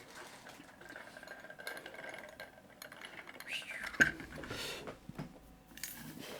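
Small metal tools and lock parts clinking and scraping as they are handled, with one sharp click about four seconds in.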